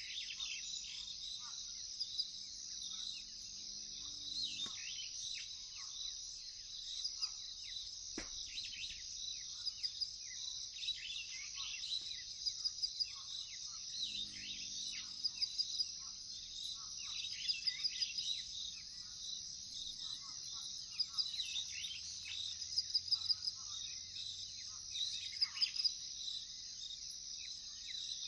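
Savanna birds chirping and calling over a steady, pulsing high-pitched drone of crickets. A short low pulsing call comes twice, about 3 seconds in and again about 14 seconds in, and there is one sharp click about 8 seconds in.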